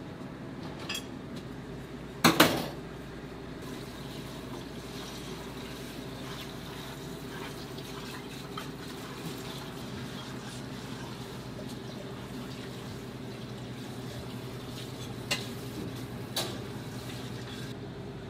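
Steady low kitchen hum, broken by a few clinks and knocks of metal utensils against metal: a short clatter about two seconds in is the loudest, and two sharper clinks come near the end.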